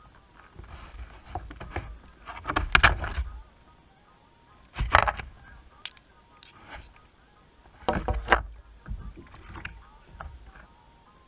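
Short bursts of noise from a fishing kayak on the water. The three loudest come about three, five and eight seconds in, with smaller knocks between them.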